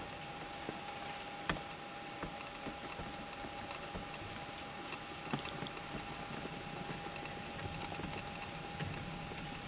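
Quiet ambience: a steady hiss with a faint, constant whine and scattered small clicks and crackles, the sharpest about a second and a half in.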